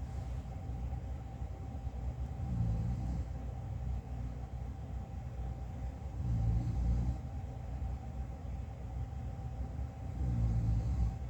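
A sleeping person snoring, a low rattling snore about every four seconds, three times.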